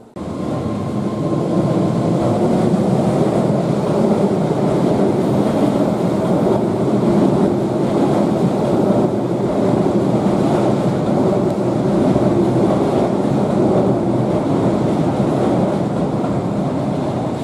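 Keihan electric commuter train running along the tracks in the station: a loud, steady rumble of wheels and running gear that starts abruptly and eases slightly near the end.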